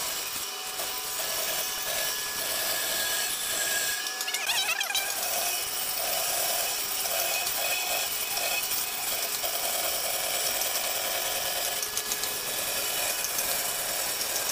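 Band saw running and cutting through a wide wooden board: a steady cutting noise with a mid-pitched tone that comes and goes.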